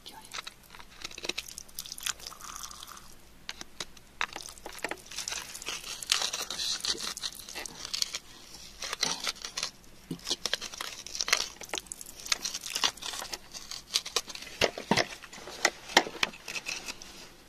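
Metal tool digging and scraping in wet, gritty soil around embedded crystals: irregular crunching with many sharp clicks and bits of grit rattling.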